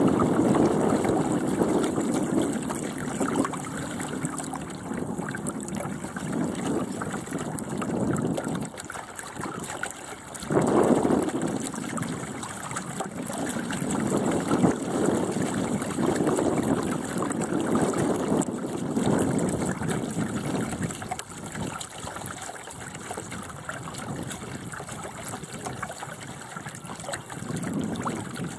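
Water rushing and splashing along the hull of a small Bauer 10 sailing dinghy under way, swelling and easing every few seconds with a sudden surge about ten seconds in, with wind on the microphone.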